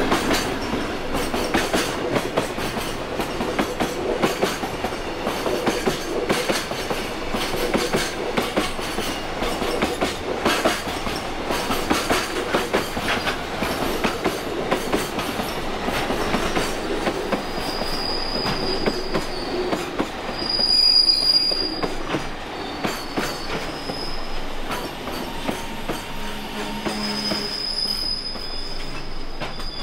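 Freight train passing through, its wagons rattling and wheels clicking over the rail joints, with a high wheel squeal setting in over the second half.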